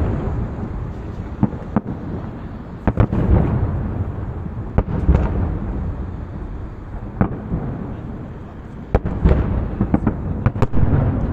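Aerial fireworks shells bursting overhead: an irregular series of sharp bangs, some in quick clusters, each trailing into a low echoing rumble.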